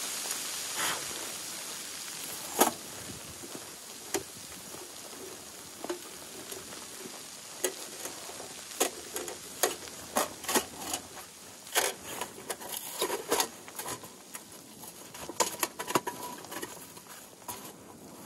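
A small folding metal wood stove being unfolded and assembled by hand: a series of sharp metallic clicks and light clanks as panels and parts are snapped together, over a steady background hiss.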